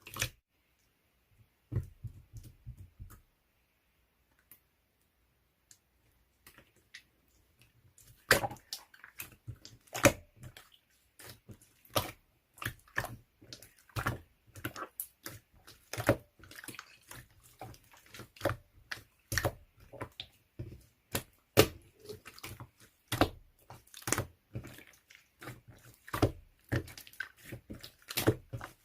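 Slime being squeezed and pressed by hand, giving wet, sharp clicking pops and squishes. The pops come about one to two a second from roughly eight seconds in, after a brief crackle near the start.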